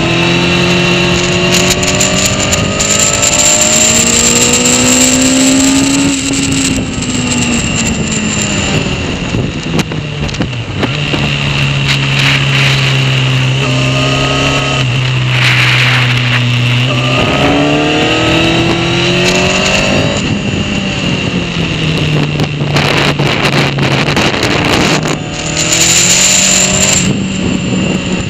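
Honda CBR sport motorcycle engine at speed on a track, revving up and down as the rider accelerates and brakes, with its pitch climbing and dropping several times. A steady rush of wind noise runs underneath.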